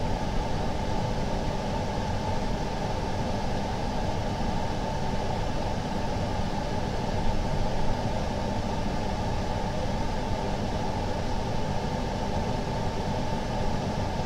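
Steady, unchanging hum of a running machine or fan.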